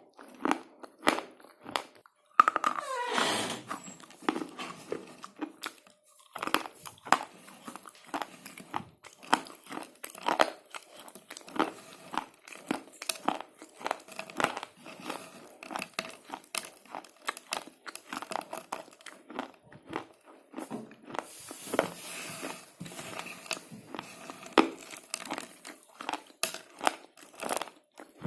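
Slate pencils being bitten and chewed close up: rapid, irregular crisp crunches and crackles, several a second. A short falling squeal comes about two and a half seconds in.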